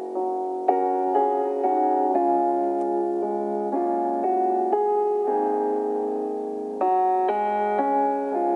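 Keyboard music: a slow run of struck chords, changing about every half second, with one chord held longer midway through.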